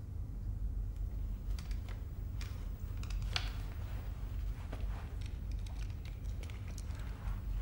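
Low, steady rumble of a closed room, with scattered faint clicks and rustles of small movements as a man takes off his wire-rimmed glasses.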